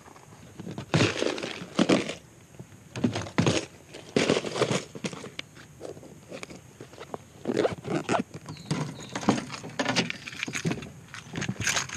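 Footsteps on gravel and fishing gear being handled and loaded into a car trunk: irregular bursts of crunching, rustling and knocks.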